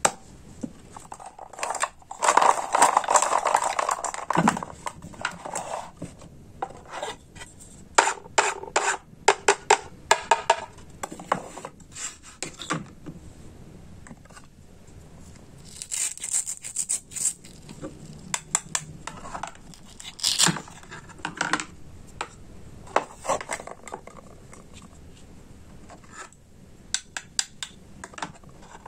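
Toy food set being handled: a wooden toy knife, toy fruit and vegetable pieces and a plastic cutting board knock, click and scrape against each other and a wooden tray in irregular bursts.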